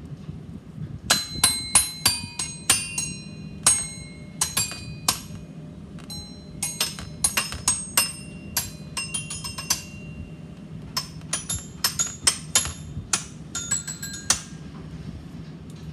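Xylophone struck with a mallet: dozens of single notes played one after another at an uneven pace, each ringing briefly, starting about a second in and stopping about a second before the end.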